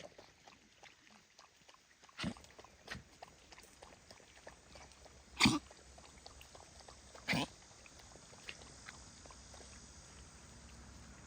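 Dogs lapping water from a pond: a run of small, quick wet clicks, with four louder wet sounds, the loudest about halfway through.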